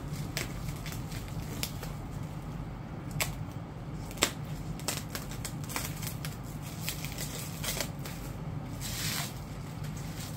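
Scissors cutting through plastic shrink-wrap and packing tape: scattered sharp snips and crinkling of the plastic, with a longer rustle of the wrap about nine seconds in.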